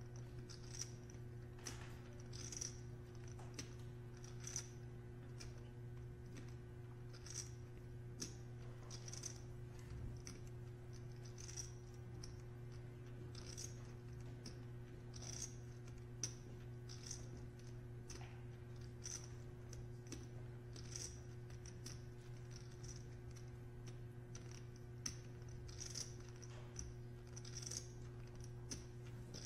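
Poker chips clicking faintly and irregularly, a light click or short clatter about once a second, over a steady low hum.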